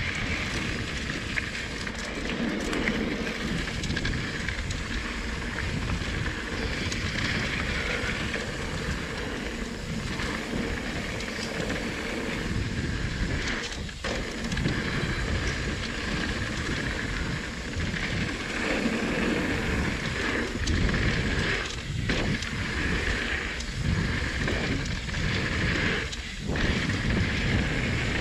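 Trek Rail 7 electric mountain bike being ridden along a dirt trail: tyres rolling and the bike rattling, under wind rushing over a chest-mounted action camera's microphone. The noise surges and eases with the ride, dropping briefly a few times.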